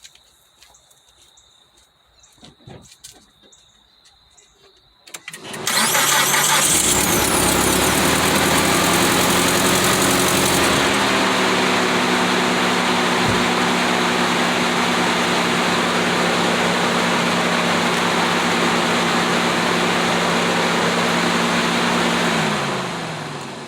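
A 2006 Mitsubishi Outlander's engine is started on a newly fitted starter about five seconds in, catching at once instead of the long crank the worn starter gave. It runs at a higher fast idle for a few seconds, settles to a steady lower idle, and is switched off near the end, dropping in pitch as it spins down.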